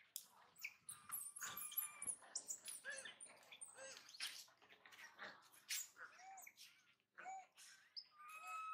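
Baby long-tailed macaque crying: short, arching squeaks through the second half and a longer held whine near the end. Small birds chirp high above it, with scattered light clicks.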